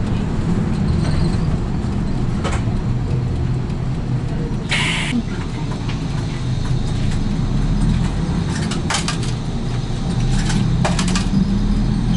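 Route bus's diesel engine running and road noise, heard inside the cabin at the front, with a short hiss about five seconds in and a few sharp rattles near the end.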